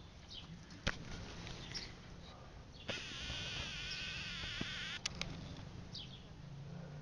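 Camcorder zoom motor whirring for about two seconds near the middle, a wavering buzzy whine that starts and stops abruptly. Faint bird chirps come and go around it, and there is a single sharp click about a second in.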